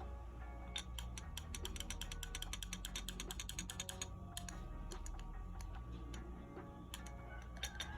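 Keystrokes on a mechanical keyboard fitted with keycaps, clacking. A fast run of about ten keypresses a second starts about a second in and stops near the halfway point, followed by a few scattered presses. Background music plays underneath.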